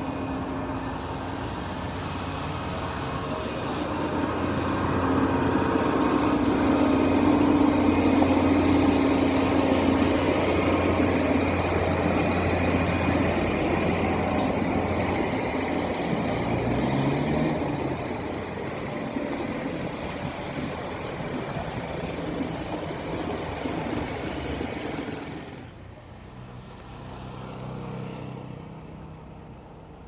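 Motor vehicle engines running steadily close by. One engine revs up about halfway through, and the sound drops off sharply near the end.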